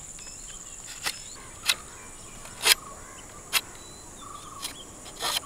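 Large knife blade cutting into split bamboo to sharpen the prongs of a bamboo fishing spear: about six sharp cuts at uneven intervals. Behind them is a steady high-pitched insect drone.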